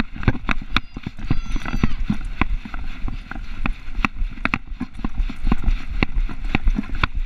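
A poodle's footsteps clicking on pavement as it walks, heard through the camera on its head as quick, irregular clicks and knocks, about three or four a second.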